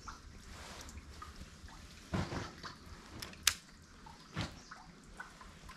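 Faint drips and small splashes of water, with a few soft knocks and one sharp click about three and a half seconds in.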